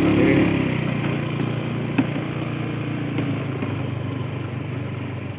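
Motorcycle engine running at a steady low speed, loudest about half a second in and easing off slowly, with one sharp click about two seconds in.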